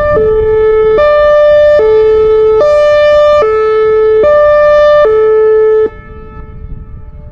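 Whelen Vortex electronic outdoor warning siren sounding its Hi-Lo test signal: two tones alternating about every 0.8 seconds. It cuts off suddenly about six seconds in, leaving only a faint trace of the tone.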